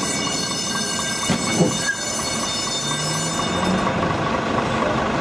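A tram sideswiping a car: a steady, high-pitched metallic squeal that stops a little under four seconds in, with two short knocks about a second and a half in.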